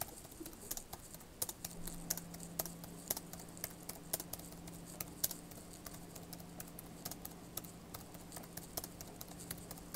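Faint, irregular clicking of computer keyboard keys being typed, over a low steady hum.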